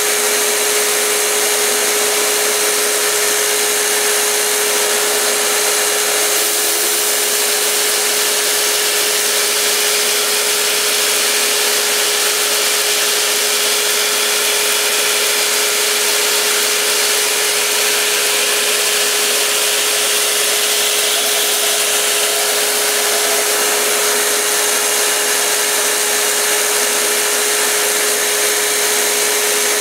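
Slack-belt grinder running steadily, with a constant hum under a steady hiss of the abrasive belt, as the edge of a large Bowie knife is sharpened against the unsupported belt.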